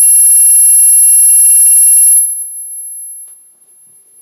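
A loud, buzzy electronic tone lasts about two seconds and then fades away. A faint, steady, very high-pitched test tone runs underneath it.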